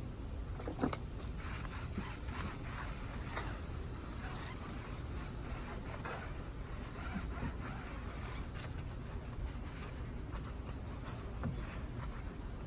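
Scrubbing on a car tire and rim: a run of irregular, scratchy rubbing strokes over a steady low rumble.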